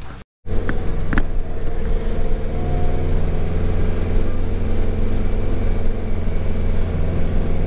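Moving motor vehicle: a steady low engine and road drone, with a couple of brief clicks about a second in.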